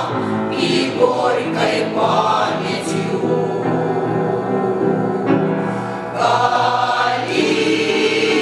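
Mixed choir of older women and men singing in sustained chords, softer through the middle and swelling to a louder full entry about six seconds in.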